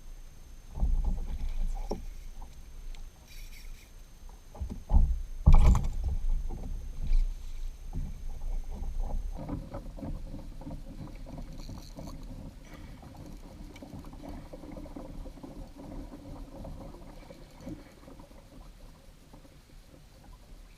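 Knocks and thumps on a Hobie kayak's plastic hull, loudest about five to six seconds in, then a steadier low rumble of the hull and water with faint ticks as the kayak moves.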